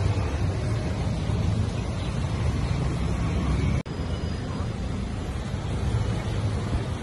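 Light street traffic of motorcycles and cars passing, heard as a steady low rumble with wind on the microphone. The sound cuts out for an instant about four seconds in.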